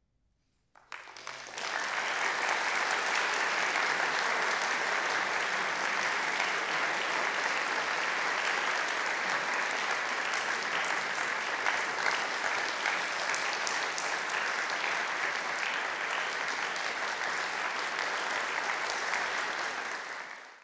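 Audience applauding in a concert hall, starting abruptly about a second in after near silence and holding steady, then fading out near the end.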